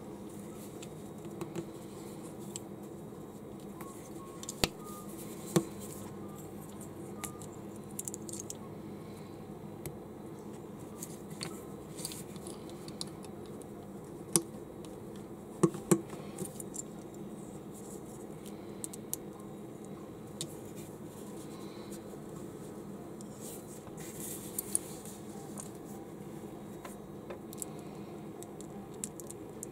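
Small plastic construction bricks being handled and pressed together: scattered sharp clicks and snaps, loudest in a quick cluster about halfway through, over a steady low hum.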